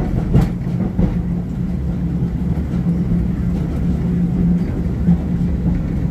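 Vintage Brisbane City Council electric tram running along the track, heard from inside the saloon: a steady rumble of wheels on rail under a constant low hum, with a couple of sharp knocks in the first second.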